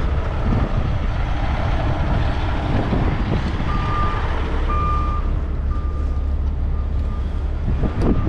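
Heavy rotator tow truck's diesel engine running steadily with a deep rumble. Partway through, a reversing alarm beeps several times, the first two beeps loud and the rest fainter.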